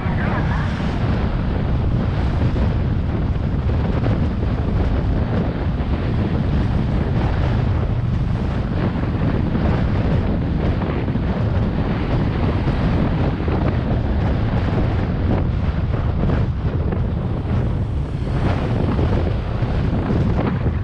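Wind rushing over the microphone of a camera moving along a road, a steady low rumble, with road and vehicle noise mixed in.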